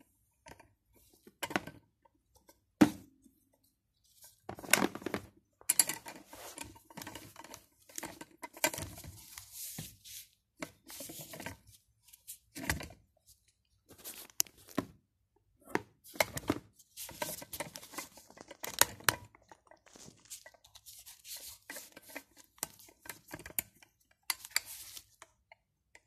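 Handling noise from a hair dryer, its cord and its cardboard box being moved about: irregular rustling and scraping with scattered sharp knocks, the loudest about three seconds in.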